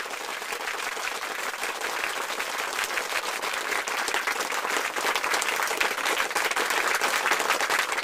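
Applause: many hands clapping in a dense, even patter that starts abruptly and grows a little louder toward the end.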